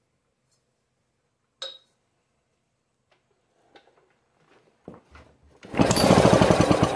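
Rope pull-start of a 1951 Homelite generator's two-cycle engine on full choke. A sharp click and a few small knocks come first, then near the end a loud burst of rapid cranking as the rope is yanked. The engine gives a hint of firing but does not catch.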